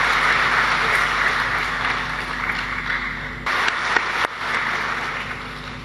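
Audience applauding, the clapping slowly dying down toward the end.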